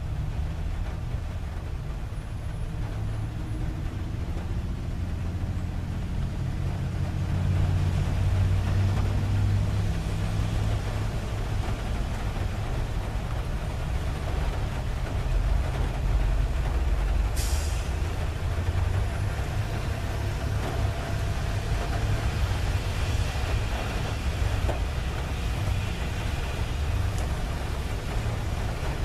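A car driving along a highway, heard from inside: a steady low engine and road rumble with a hiss of tyres on the road. A brief sharp hiss comes about two-thirds of the way through.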